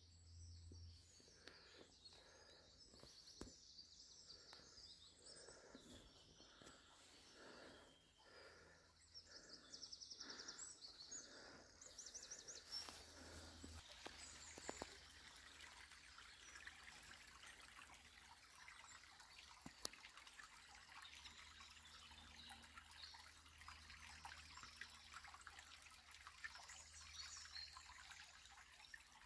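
Faint bird calls, then a small woodland stream trickling steadily from about twelve seconds in.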